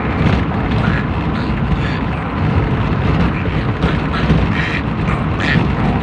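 A man imitating a duck's quacking with his mouth, short calls at irregular intervals, over a steady low rumble inside a car.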